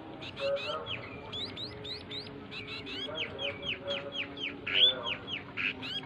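Caged emprit songbird singing: a fast stream of short whistled chirps that sweep up and down, several a second, with fainter lower notes underneath.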